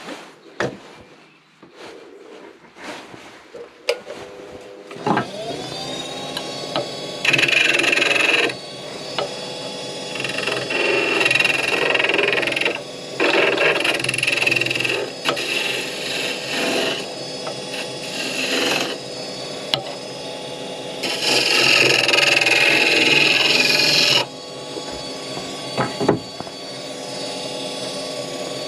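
Wood lathe starting up about five seconds in and running steadily, with a turning chisel cutting the spinning wood in several bursts of scraping, the longest and loudest near the end.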